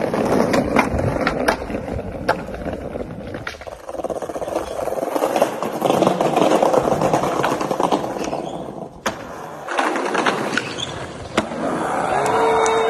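Skateboard wheels rolling over concrete and brick paving, with several sharp clacks of boards popping and landing. Near the end a steady held tone sets in.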